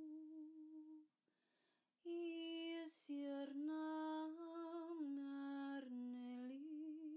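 A woman's voice singing light language without words. A long held, hummed note stops about a second in. After a short pause comes a phrase of held notes that step between a few pitches, ending on a long held note.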